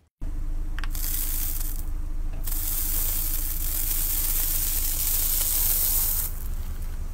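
A car tyre rolling slowly over a stack of yellow honeycomb-textured discs and crushing them, with dense crackling that is loudest from about two and a half to six seconds in, over the low steady hum of the car's engine.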